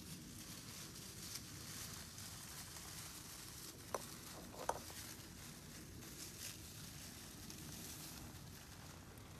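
Small animal moving through dry fallen leaves: faint, uneven rustling and crackling in the leaf litter, with two sharp clicks near the middle.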